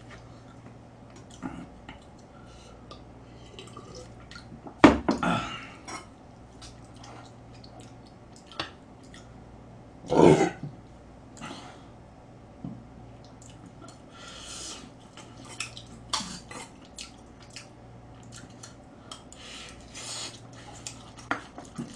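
Close-miked eating: chewing and lip-smacking, with utensils clicking against a metal pot and bowl. Two louder short bursts come about five and ten seconds in.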